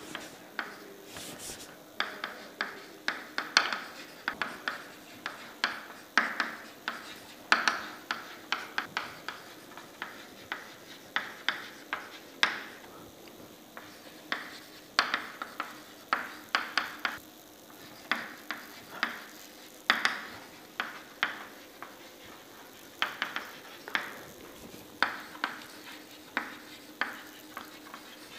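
Chalk writing on a chalkboard: a run of irregular sharp taps and short scratches as the letters go down, with brief pauses between words, over a faint steady hum.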